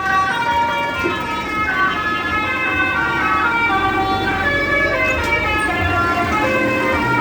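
Bus telolet horn playing a tune: several air-horn tones sounding together, stepping through a run of held notes about every half second.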